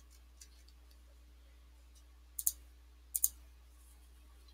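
Computer mouse clicking: two quick pairs of clicks a little under a second apart, over a faint steady hum.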